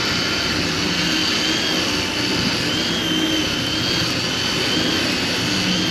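A sportfishing boat's engines running steadily under a continuous rush of noise, with a thin wavering whine high above.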